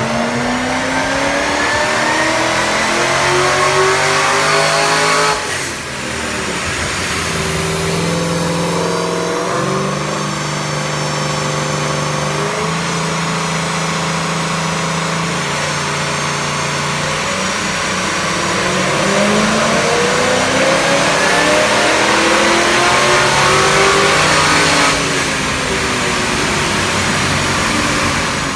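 Supercharged LSA V8 of a Holden Commodore VF GTS revving hard. The engine note climbs for about five seconds and drops off, holds at a few steady speeds, then climbs again for several seconds before cutting off suddenly at the end.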